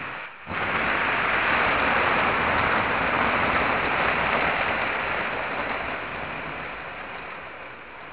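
Dnepr rocket's first-stage engines at liftoff, close by: a brief burst, then about half a second in a loud, dense rush of rocket-engine noise starts suddenly and slowly fades as the rocket climbs away.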